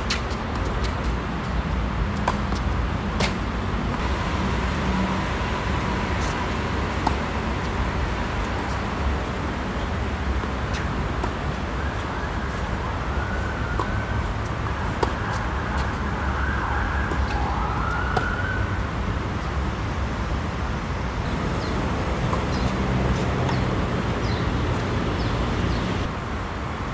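Tennis rallies: sharp knocks of rackets hitting the ball, over a steady hum of city traffic. A distant siren rises and falls faintly from a few seconds in until past the middle.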